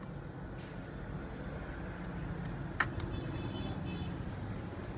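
A steady low hum with a single sharp click a little under three seconds in, as hands work the cables and connectors on a desktop motherboard, followed by a faint high whine lasting about a second.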